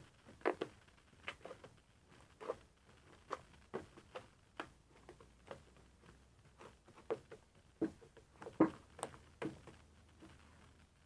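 Fluffy slime, made airy with dish soap, being squeezed and poked by hand, giving faint, irregular sticky clicks and small pops.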